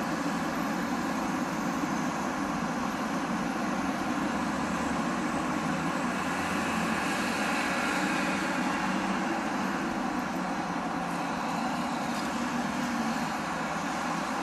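Road traffic passing through an intersection: cars and motorcycles giving a steady mix of engine and tyre noise, swelling a little around the middle.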